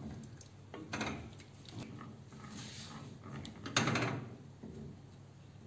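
Wooden spoon stirring flour-thickened stock and vegetables in a stainless steel pot: soft wet sloshing and scraping strokes, the loudest about a second in and again near four seconds.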